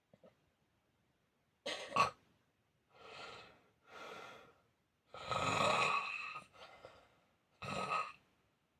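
Snoring with uneven breaths after a silent pause: a short sharp snort about two seconds in, two softer breaths, a long loud snore around five to six seconds, then a short one near the end. The uploader presents the snoring as sleep apnea.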